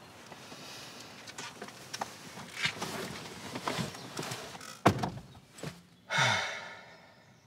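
A man climbing into a car's driver's seat: rustling and small knocks, then the car door shutting with a sharp thunk about five seconds in. About a second later comes a rush of noise that fades out.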